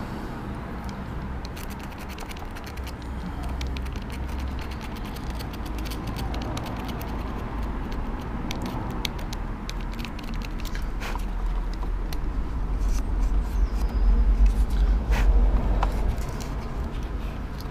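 Screwdriver scraping and clicking inside a car's fog-light housing, cleaning out the opening, as a run of small sharp clicks and scrapes. A low rumble runs underneath and swells about two-thirds of the way through.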